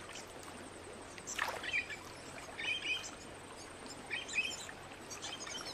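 Small birds chirping in short high bursts, three or four times, over faint background ambience. A brief falling swish comes about a second and a half in.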